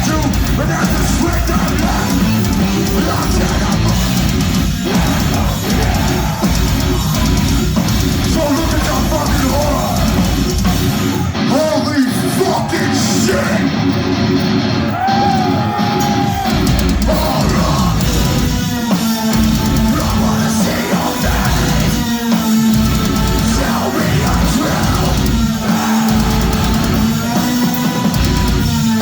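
Metalcore band playing live at high volume: distorted guitars, bass and drums with harsh shouted vocals. Near the middle the bass and drums drop out for a few seconds, leaving guitar, then the full band comes back in with stop-start chugging riffs.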